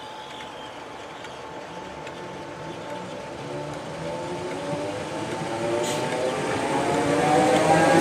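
Merseyrail Class 507 electric multiple unit running on the line, its motors giving a whine that slowly rises in pitch over a rumble, growing steadily louder.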